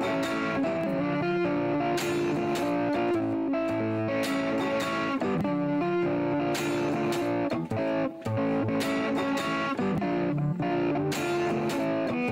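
Background music: a guitar-led instrumental passage with a steady beat.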